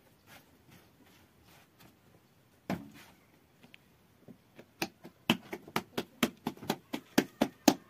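Thin flatbread dough slapped back and forth between the palms: a steady run of sharp slaps, about three a second, starting about five seconds in and growing louder. A single knock comes a little before the slaps.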